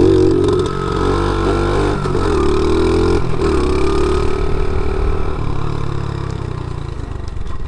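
50cc pit bike engine revving hard under throttle for a wheelie attempt, its pitch climbing, dropping back and climbing again several times as the throttle is opened and eased.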